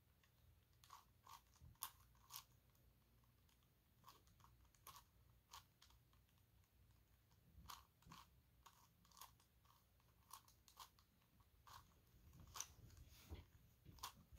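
Faint, irregular plastic clicking and clacking of a 5x5 dodecahedron twisty puzzle being turned by hand, in quick spurts of several clicks a second.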